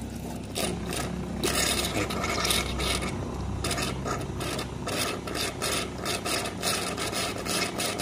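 Cafelffe EM653-3C espresso machine dispensing hot water from its wand into a stainless steel milk pitcher during a first flush. The water sputters and spits in rapid, irregular spurts over a steady low hum.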